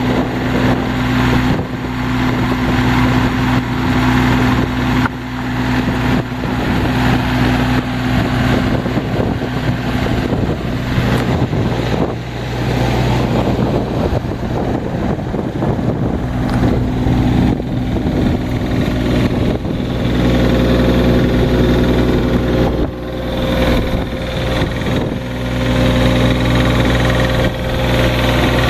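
Diesel engine of a Schaeff HR12 mini excavator running steadily. Its note shifts in the middle and again later on, with a few short clanks along the way.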